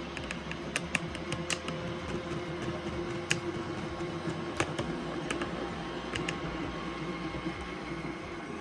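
iRobot Roomba i7+ robot vacuum running with a steady motor and brush hum while cleaning up fine powder, with irregular sharp clicks, several in the first second and a half, then scattered.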